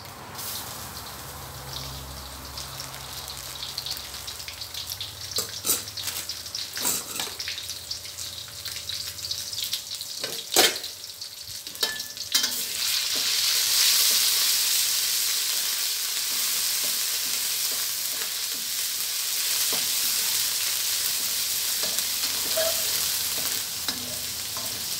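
Chopped garlic sizzling in hot oil in a steel wok, with a few sharp knocks of a metal spatula. About halfway through, red curry paste goes into the oil and the sizzle turns louder and hisses steadily while the spatula stirs it.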